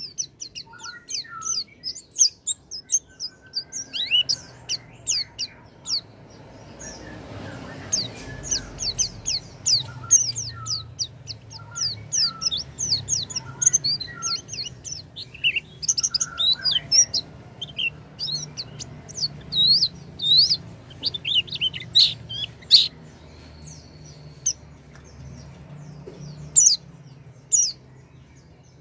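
White-eye (pleci) singing: rapid, thin, high chirps and twitters, dense through most of the stretch with a short lull early on and thinning near the end, over a faint low hum.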